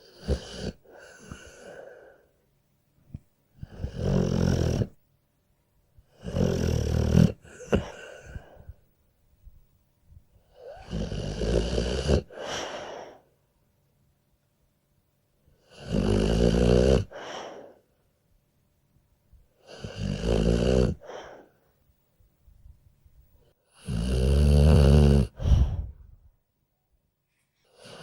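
A sleeping dog snoring: about seven rattly snores, one roughly every four seconds, each lasting one to two seconds, with near-silent pauses between breaths.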